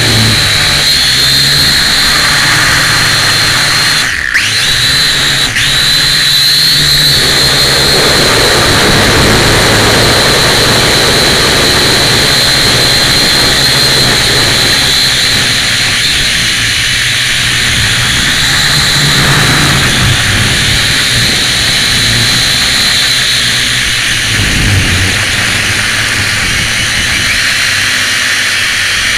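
Syma X1 quadcopter's small electric motors and propellers whining steadily in flight, heard close up from the 808 #11 keychain camera riding on the quad. The sound dips briefly twice, about four and five and a half seconds in.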